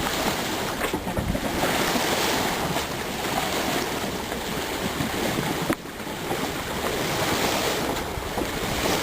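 Steady rush of wind and water under way on a sailboat, with wind buffeting the microphone. The noise dips briefly about six seconds in.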